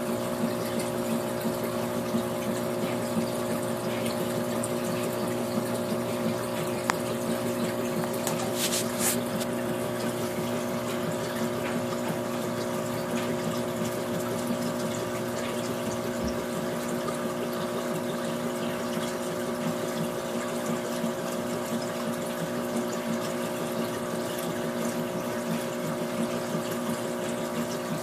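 Aquarium filter pump running steadily: a constant motor hum under continuous splashing and trickling water.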